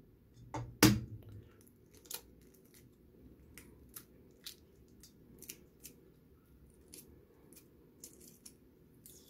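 Hard-boiled egg's shell cracking and being peeled off by hand: a few sharp cracks in the first two seconds, the loudest about a second in, then a run of small crackles and snaps as the shell comes away.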